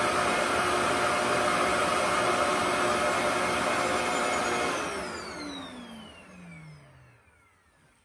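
RevAir reverse-air hair dryer running, a steady rush of suction airflow with a motor hum. About five seconds in it is switched off and the motor whine falls in pitch as it spins down to quiet.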